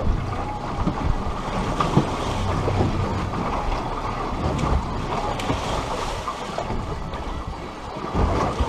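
Wind buffeting the microphone over the wash of the sea around a small boat, with a few brief knocks.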